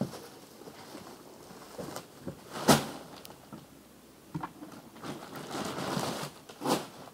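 Hand work with a plastic bag and a bucket: a sharp knock about two and a half seconds in, then rustling and handling noise, and a second knock near the end.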